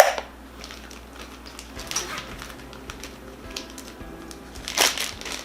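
Light kitchen handling sounds: a sharp click at the start, a few small ticks and a brief rustle near the end, as chopped food is portioned into freezer bags, over faint background music.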